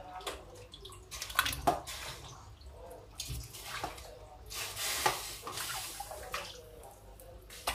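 Raw meat pieces being washed by hand in a stainless steel bowl of water: irregular sloshing and splashing, with a few sharp knocks as pieces are handled and moved into a metal pot.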